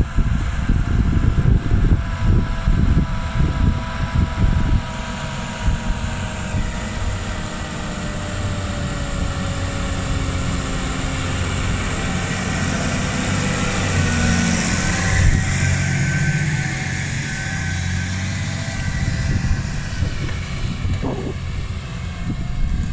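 New Holland T7.230 tractor's diesel engine working under load while pulling a five-furrow reversible plough, its note slowly falling in the middle and growing louder about two-thirds of the way through. Wind buffets the microphone in the first few seconds.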